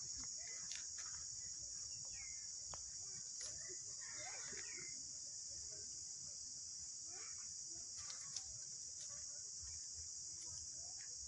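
A steady, high-pitched insect chorus drones without a break, with a few faint short chirping calls over it, twice in the first half and once just before the end.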